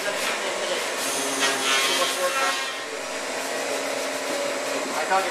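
Benchtop table saw running, its blade cutting through a wooden trim board with a steady noisy whir.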